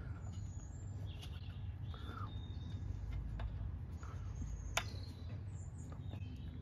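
Birds chirping over a steady low outdoor rumble, with one sharp click about five seconds in as the stainless steel manifold tube is worked onto the cylinder valves by hand.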